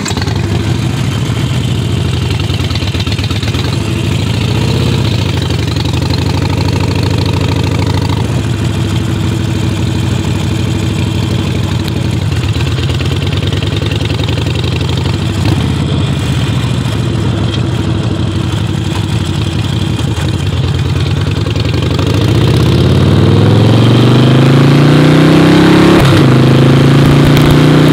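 Motorcycle engine running at low speed as the bike rolls off. About three quarters of the way through it gets louder and rises in pitch as it accelerates, with a gear change near the end.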